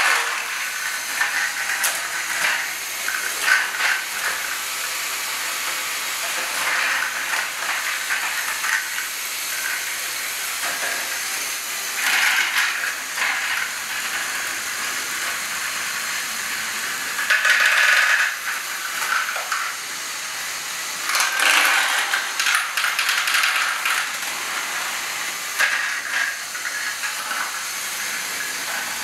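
LEGO Technic Great Ball Contraption modules and a battery-driven train running: a continuous plastic clatter of gears, levers and balls, full of small clicks. There are louder spells of clattering about twelve, eighteen and twenty-two seconds in.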